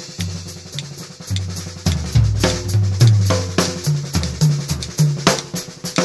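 DW drum kit played in a busy groove, sharp snare strokes and rimshots over bass drum, along with a bass line that steps between sustained low notes.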